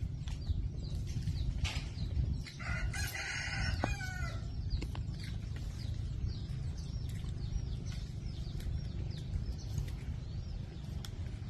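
A rooster crows once, about three seconds in, over a steady low rumble of wind on the microphone.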